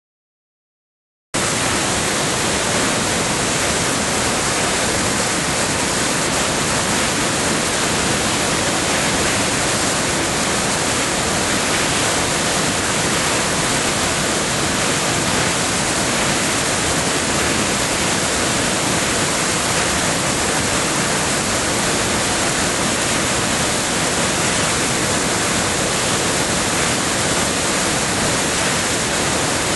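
Steady rushing of creek water tumbling over rocks, starting suddenly about a second in and holding even throughout.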